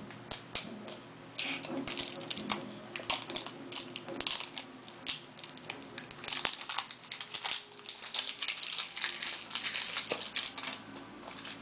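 Packaging crinkling, with many small irregular clicks and taps, as a Hello Kitty surprise egg is opened and its contents handled.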